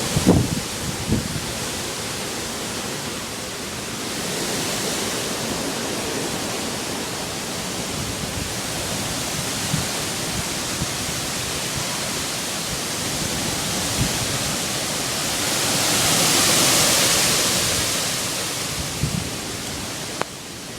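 Hurricane-force wind blowing hard, a steady rush that swells in gusts about four seconds in and again around sixteen seconds.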